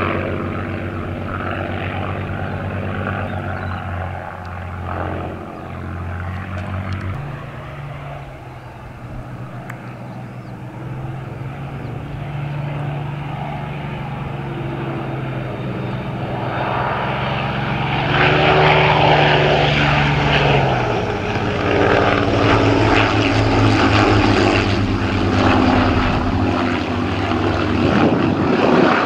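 Hawker biplanes' Rolls-Royce Kestrel V12 piston engines droning through a formation display pass. The engine note steps to a different pitch about seven seconds in, and grows louder from about eighteen seconds in as the aircraft come nearer.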